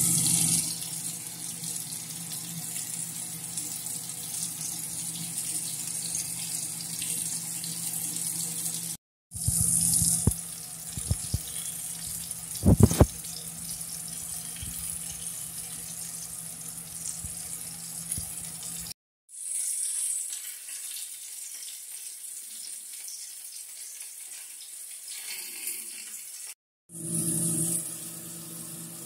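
Vegetables sizzling steadily in an oiled frying pan over a low hum. The sound breaks off sharply three times, and a few sharp knocks and clatters sound between about 10 and 13 seconds in.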